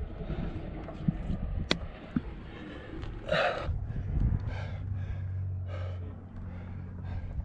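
A rock climber breathing hard, a series of heavy gasping exhales, with one sharp click just under two seconds in.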